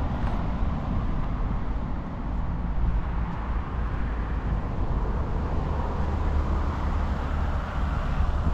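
City street ambience: a steady hum of road traffic with a deep low rumble and no distinct single events.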